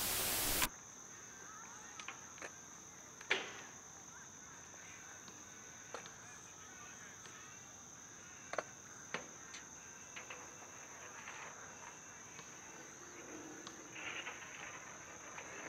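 Static hiss that cuts off suddenly less than a second in, giving way to quiet outdoor ambience: a steady high-pitched insect drone with scattered sharp clicks.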